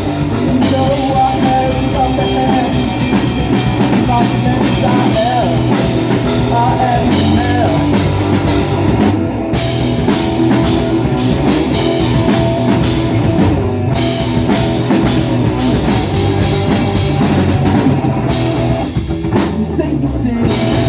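Rock band playing live: a drum kit and guitars in an instrumental passage of the song, loud and continuous.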